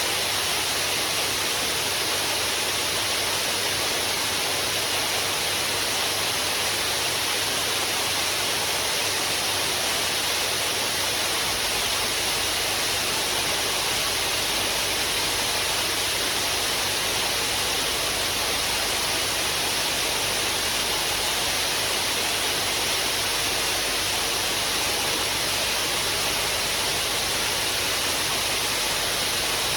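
Waterfall: a steady, even rush of falling water that does not change, with most of its energy in the higher hiss.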